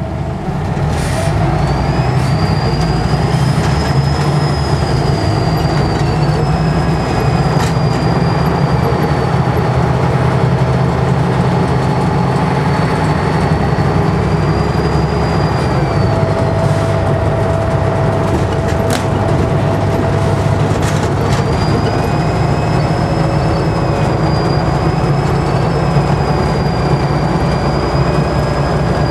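A 2005 Scania N94UD double-decker bus's turbocharger whistling loudly over the steady diesel engine rumble. The high whistle wavers in pitch, fades out about halfway through and comes back a few seconds later, with a few sharp clicks in between.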